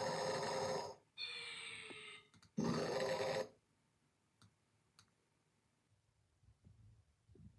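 Snoring: a loud rasping snore, then a whistling tone that slides slightly down in pitch, then a second rasping snore about two and a half seconds in. After that it falls quiet, with two faint clicks.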